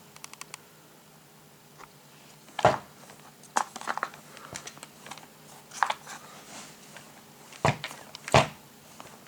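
Handling noises from a plastic radio-controlled truck being picked up and inspected: a scattering of about six short, sharp knocks and clicks, with quiet between them.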